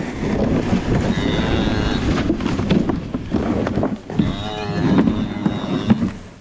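Mother cow lowing twice at her newborn calf, a call about a second in and another about four seconds in, over the scraping of a plastic calf sled dragged across straw and snow.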